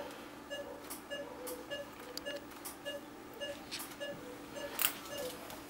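Anesthesia patient monitor beeping steadily about twice a second, the pulse tone of the anesthetized dog, with a few faint clicks of surgical instruments, the sharpest near the end.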